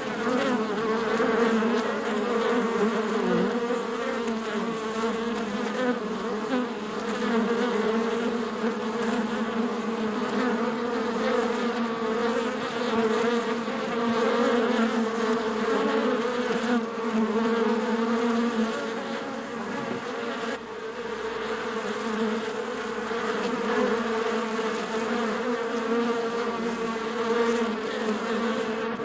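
Swarm of honey bees buzzing: a dense, steady hum of many wingbeats, with pitches wavering slightly as individual bees move about.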